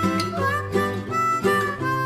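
Background music: harmonica and guitar playing a light tune over a steady bass line.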